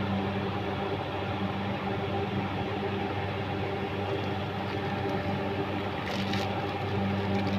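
Steady electric machine hum with a fixed low pitch, unchanging throughout. About six seconds in, a brief light metallic clink of the gearbox parts being handled.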